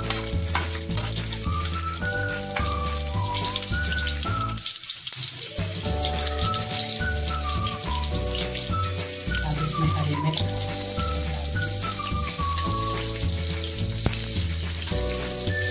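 Onion pieces sizzling in hot oil in a nonstick frying pan and stirred, joined by capsicum and green chillies near the end. Background music with a walking bass and a melody plays under the sizzle, dropping out for about a second a little past four seconds in.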